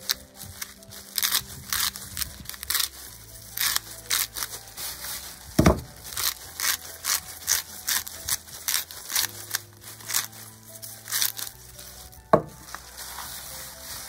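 Bottle grinder twisted over meat, grinding Himalayan salt and black pepper: a run of short crunching rasps, about two a second, with two louder knocks, one in the middle and one about two-thirds through. Soft background music underneath.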